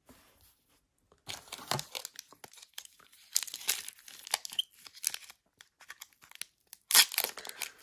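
Foil Pokémon TCG booster pack wrapper crinkling and rustling as it is handled, then a louder rip about seven seconds in as the pack is torn open at the top.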